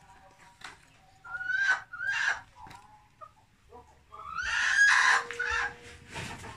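Chickens calling: two short calls about a second and a half in, then a rooster's long crow about four seconds in.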